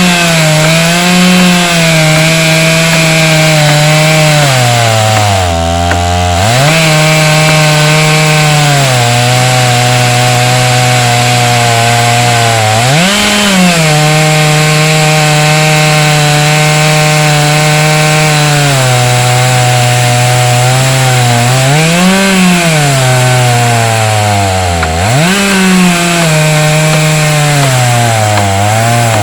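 Chainsaw on an Alaskan chainsaw mill running at high revs under load, ripping a long log lengthwise into a plank. The engine note wavers as the cut loads it, and it drops sharply and recovers twice, about a fifth of the way in and near the end.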